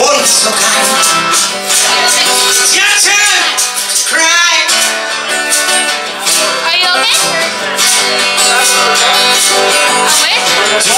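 Live acoustic guitar music, played steadily, with a melody line that bends in pitch a few seconds in.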